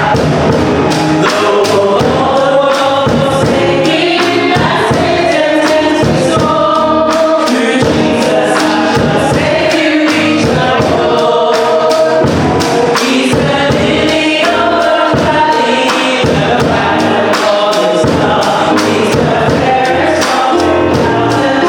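Gospel music: a group of voices singing together over instruments, with a steady beat throughout.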